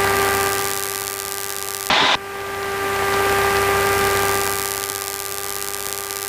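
Light aircraft's engine and propeller droning steadily, heard through a headset intercom with a hiss that swells and fades. A short, loud burst of static comes about two seconds in.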